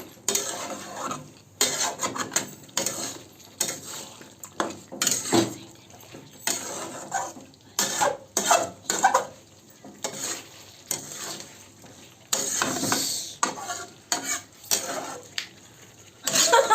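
A metal spoon stirring and scraping chicken curry in a pan, with irregular clinks and scrapes against the pan and a light sizzle of the frying masala.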